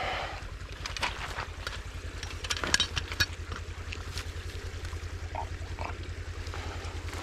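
Hands pulling sticks and mud out of a beaver dam: scattered snaps and crackles, a cluster of louder ones about three seconds in, over a steady low rumble.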